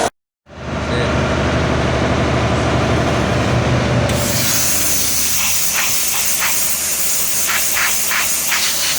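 Loud, steady mechanical hissing noise with a low hum underneath, after a brief cut to silence at the start. About four seconds in a higher, sharper hiss takes over, with a few short ticks.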